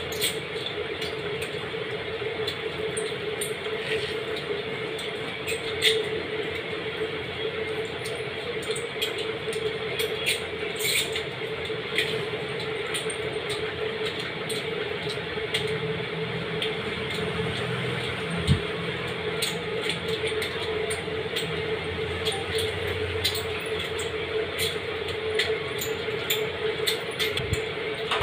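Close-up eating sounds from a meal of rice and curry: chewing and small scattered clicks of food and utensils on a plate, over a steady low hum.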